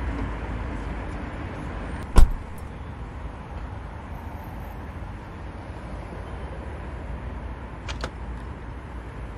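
Car passenger door shut once about two seconds in, a single sharp thud over the steady low rumble of the idling car; a lighter click near the end.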